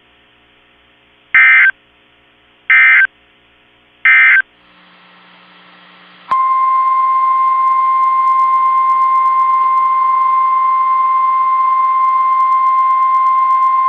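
Three short bursts of warbling SAME digital data tones, the Emergency Alert System end-of-message code, followed about six seconds in by a loud, steady single-pitch tone: the NOAA Weather Radio 1050 Hz warning alarm tone that comes before a new warning.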